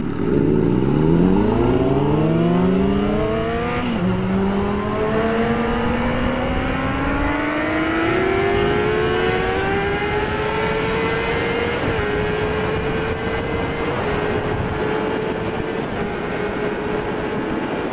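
Sport motorcycle engine pulling away from a stop and accelerating up through the gears. Its pitch rises steadily, drops clearly at an upshift about four seconds in, and drops slightly again at later shifts near twelve and fourteen seconds. Wind noise runs underneath.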